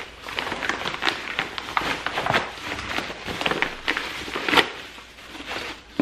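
Stiff paper mailing bag crinkling and rustling as hands rummage inside it and draw out the contents, in irregular crackles with one sharper crackle at about four and a half seconds.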